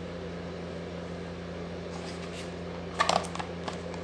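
A quick cluster of sharp clicks and knocks about three seconds in, with one more click shortly after, from plastic parts of a Kärcher pressure washer being handled and fitted together, over a steady low hum.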